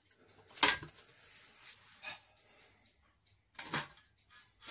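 Sharp metallic knocks from a home-built robot lifter test rig, one about a second in and another near the end, with a fainter clack between.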